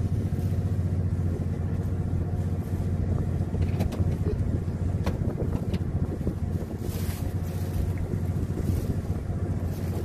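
Fishing boat's motor running with a steady low hum, with a few faint clicks in the middle and a brief rush of wind noise about seven seconds in.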